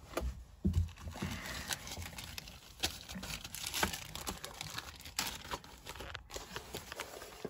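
Thin plastic bag crinkling and rustling as it is handled, with scattered clicks and a few louder knocks.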